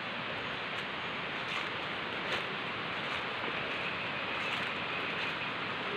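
Footsteps on a forest trail with rustling of leaves and undergrowth, a step about every three-quarters of a second, over a steady rushing noise.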